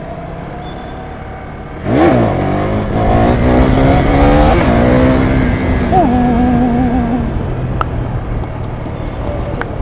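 Motorcycle engine revving hard under acceleration. About two seconds in the engine note jumps up and climbs in pitch, drops once near the middle, then holds steadier and fades.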